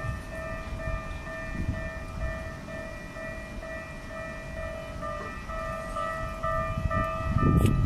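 Japanese level crossing warning bell ringing in a steady repeating ding, about two a second, over a low rumble that swells near the end, with a sharp click shortly before the end.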